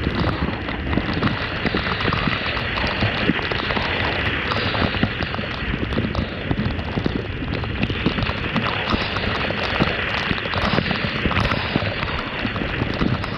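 Fish frying in hot oil in a pot, sizzling and crackling steadily.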